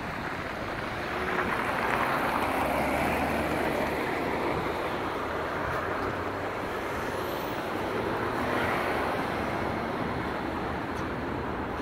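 City street traffic: a steady rush of passing vehicles, swelling as cars go by about two seconds in and again around eight seconds.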